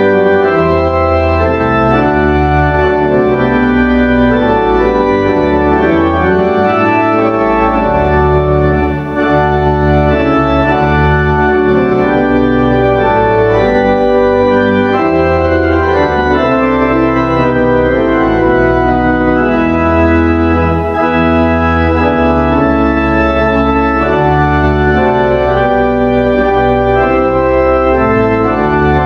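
Church organ playing slow, sustained chords that shift every second or so over a deep pedal bass.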